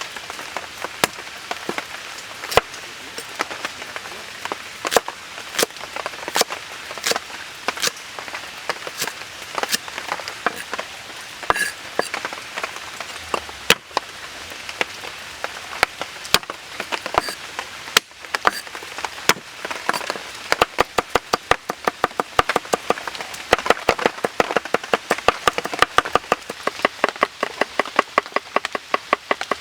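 Knife chopping on a wooden cutting board: scattered, irregular strikes at first, then fast, steady chopping at about four strokes a second for the last third.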